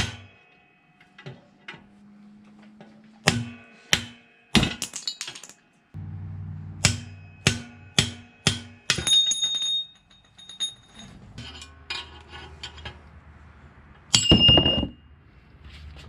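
Hammer and punch knocking a bearing race out of a GM 10-bolt rear axle housing: about a dozen sharp metal blows in uneven bunches. Then come high ringing metal clinks, and one loud clatter near the end.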